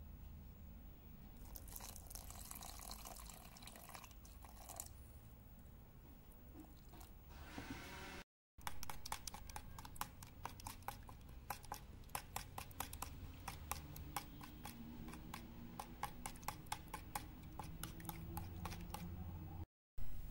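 A metal spoon stirring ink berry leaf paste thinned with water in a glass bowl, clinking rapidly and regularly against the glass as the liquid sloshes. Before the stirring, a few seconds of soft pouring hiss as liquid goes into the bowl.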